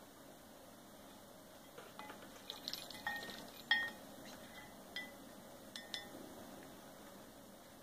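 Ice cubes clinking against a glass bowl, with light splashing, as a sun conure dips into the ice water to bathe. About eight sharp clinks, each with a brief ring, come in a scattered run through the middle; the loudest is just under halfway.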